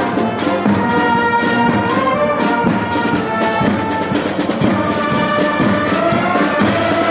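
Military band playing with brass, clarinets and a drum.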